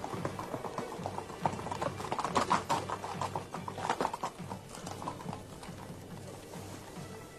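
Horses' hooves clip-clopping on paving as riders set off, the strikes densest and loudest in the middle and thinning out toward the end, with background music.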